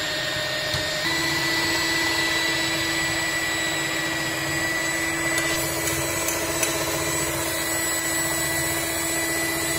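Philips stand mixer's electric motor running steadily, its beaters whirring through cake batter, with a steady whine that shifts slightly about a second in.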